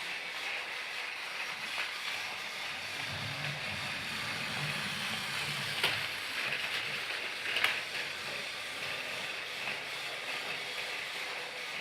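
Thomas the Tank Engine toy train running: a steady hiss with a low hum partway through and two sharp clicks, about six and seven and a half seconds in.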